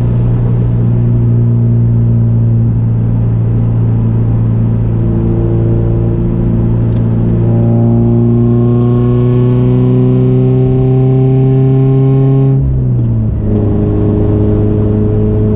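Subaru BRZ's FA20 flat-four running through an Ace equal-length header, catless front pipe and Laguna 100 cat-back exhaust while driving. The note holds steady, then climbs slowly under light acceleration for several seconds. Near the end it drops sharply and settles at a steady lower note.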